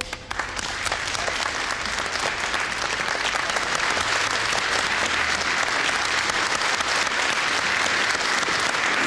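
Audience applauding: many hands clapping, swelling over the first couple of seconds and then holding steady.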